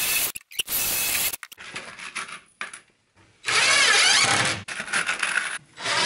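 Cordless drill/driver driving screws into the refrigerator cabinet, in several short runs, its motor whine rising and falling with the trigger.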